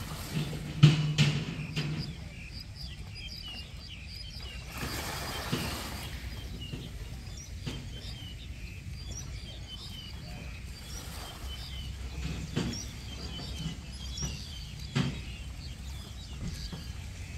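Small birds chirping again and again, many short high calls, over a low steady outdoor rumble, with a brief rush of noise about five seconds in and a few sharp knocks.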